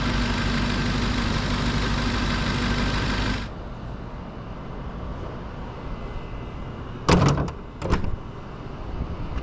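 Steady mechanical running noise with a constant hum, which cuts off suddenly about three and a half seconds in, leaving a quieter background. Near the end come two short thumps about a second apart.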